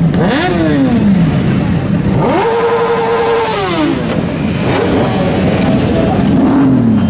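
A pack of sport motorcycles running in a dense group, with engines revved up and let fall several times; one rev climbs sharply about two seconds in, holds high for about a second, then drops away.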